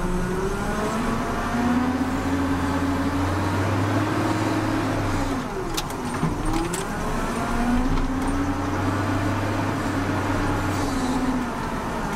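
Six-cylinder Cummins diesel of a Volvo BM L70 wheel loader working under load, heard from inside the cab: the revs climb, hold and fall back twice. A few sharp clicks come about six seconds in.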